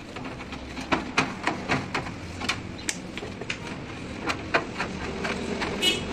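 Metal motorcycle front-fork tubes clinking and knocking against a steel wash tray as they are handled and rinsed, a run of irregular sharp taps and clicks, two or three a second.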